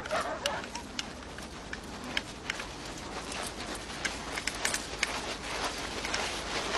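Many feet crunching through snow as a group walks in a column, an uneven run of crisp crunches. A dog's barking trails off in the first half second.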